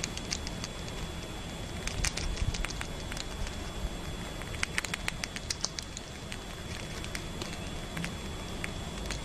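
A squirrel chewing a piece of fruit held in its paws: irregular small crisp clicks and crunches, busiest about two seconds in and again around five seconds in.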